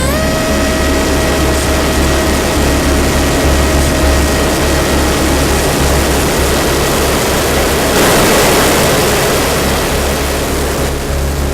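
Micro Skyhunter RC plane's brushless electric motor and propeller heard from onboard. The motor's whine rises as the throttle comes up at the start and then holds steady under loud wind rush and buffeting. The wind noise surges about eight seconds in.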